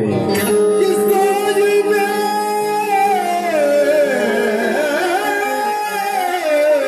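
Qawwali singing: a male voice holds one long wordless note that slides down about halfway through, wavers, rises again and falls near the end, over steady lower accompanying tones.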